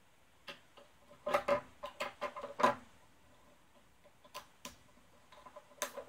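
Small hard plastic robot parts click and tap against each other and the wooden tabletop as they are handled. A quick run of clicks in the first half is followed by a few scattered ones near the end.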